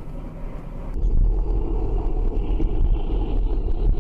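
Steady low road and engine rumble of a moving car picked up by a dashcam, with wind noise on the microphone. About a second in it shifts abruptly to a louder, deeper rumble.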